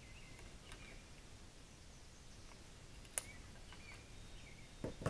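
Quiet background with faint, scattered bird chirps and a single sharp click about three seconds in.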